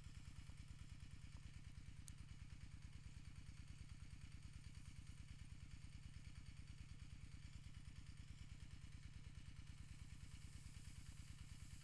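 A small engine idling steadily and faintly, with a fast, even pulsing.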